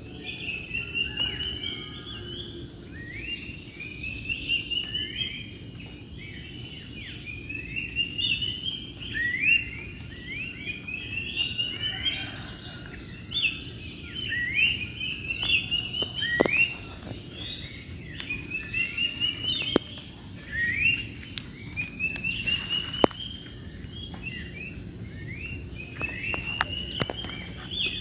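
Wild birds singing in chorus: many short, rising whistled notes overlapping. A steady, high insect drone runs underneath.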